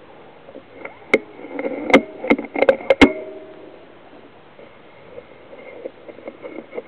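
A quick, irregular series of about six sharp clicks and knocks, bunched close together near the end, the last with a short metallic ring. Faint low rustling follows.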